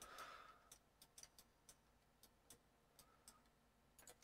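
Faint, irregular clicks of a computer mouse and keyboard, about ten of them, over near silence.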